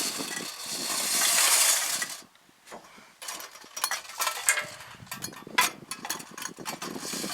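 Hissing noise for about two seconds, then, after a brief pause, a run of rapid, irregular metallic clicks and clinks from a tin wind-up robot toy and its clockwork mechanism.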